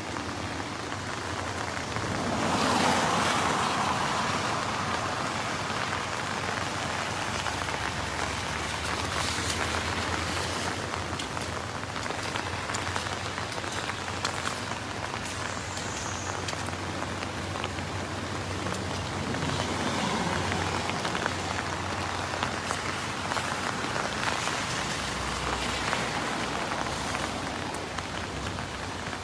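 Heavy rain falling steadily, an even hiss that swells a little a few seconds in.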